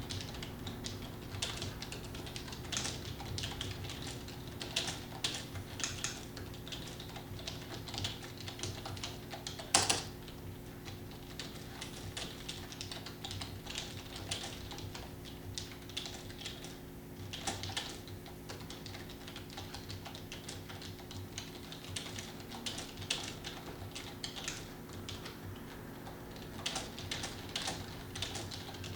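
Typing on a computer keyboard: a fast, irregular run of keystrokes, with one louder clack about ten seconds in. A steady low hum runs underneath.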